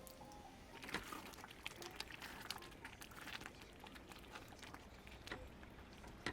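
Quiet kitchen handling sounds: a quick run of light clicks, taps and clatter during cooking, with a sharper click near the end.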